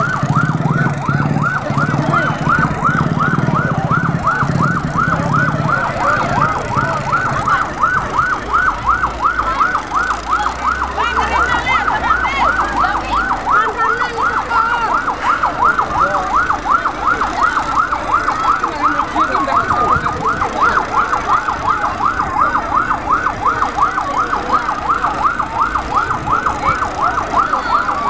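Fire engine siren sounding a fast yelp, its pitch sweeping up and down about three to four times a second without a break. A low engine rumble lies under it for the first few seconds.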